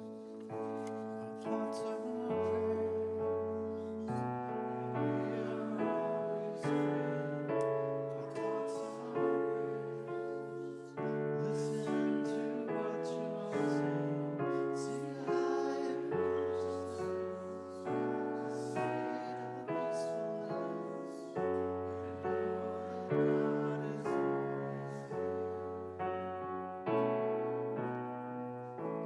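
Piano playing a slow, gentle piece, chords changing every second or two over low bass notes, each chord fading after it is struck.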